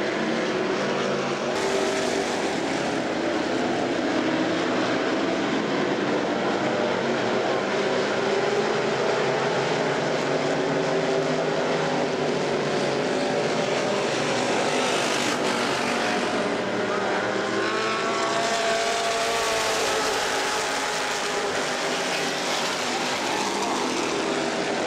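A pack of dirt-track stock cars racing, several engines running hard together. Their notes rise and fall as the cars pass through the turns and down the straights.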